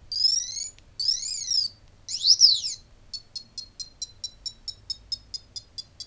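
Otto DIY robot's buzzer playing electronic sound effects: a rising chirp, then up-and-down sweeping tones, then from about halfway a quick run of short beeps, about four or five a second.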